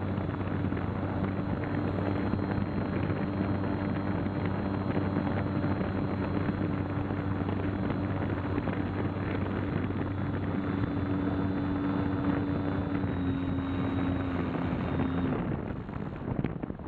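Air rushing over the onboard camera's microphone as a radio-controlled glider flies, with a steady low hum running alongside. The hum stops about fifteen seconds in and the sound gets quieter.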